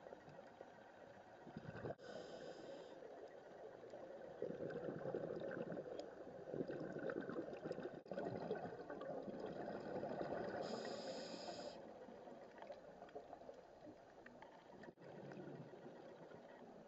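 A scuba diver breathing through a regulator, heard underwater: exhaled bubbles gurgling in uneven surges, loudest in the middle. Two short high hisses come about two seconds in and again past the middle.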